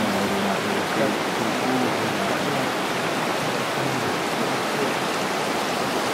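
Steady rush of running water from a stream, an even hiss that holds level throughout.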